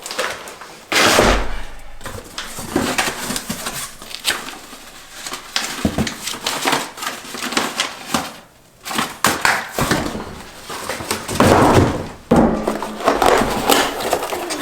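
Packaging being handled as a boxed brake rotor is unpacked: rustling and scraping of wrapping and box, with irregular knocks and bumps.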